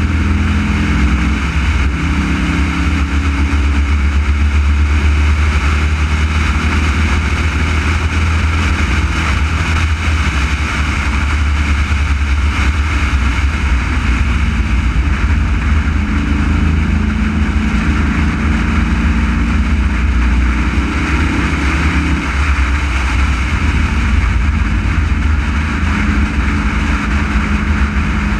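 Race car's engine running hard at speed on track, its pitch shifting as the car goes through the corners, over a heavy, steady low rumble of wind and road noise.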